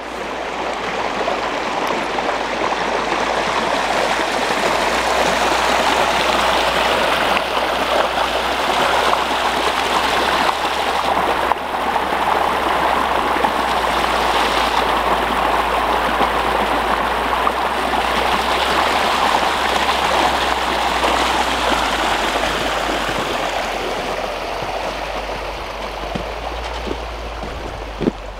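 Spring snowmelt water running across a flooded forest track: a steady rush of flowing water that swells over the first few seconds and eases slightly near the end.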